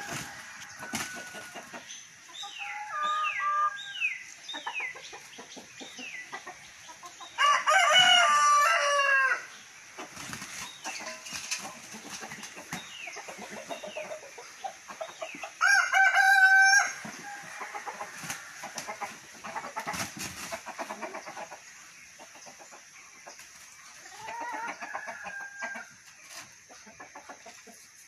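Roosters crowing: a loud crow about eight seconds in and a shorter one near sixteen seconds. Between the crows there are softer clucks and short calls from the flock.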